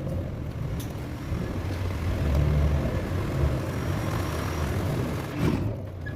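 A motor vehicle's engine running steadily, growing louder for a second or so around the middle.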